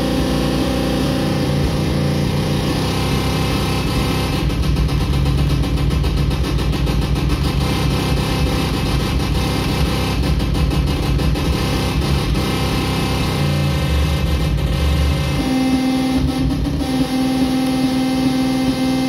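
Circuit-bent Meowsic toy keyboard putting out a loud, buzzing electronic drone of stacked steady tones. A fast stuttering pulse runs through the middle, and the low tones shift in pitch and texture near the end as its knobs and keys are worked.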